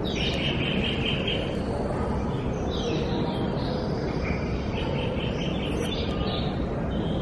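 Bird calls, several bursts of high chirping and trilling, over a steady low rumble of background noise.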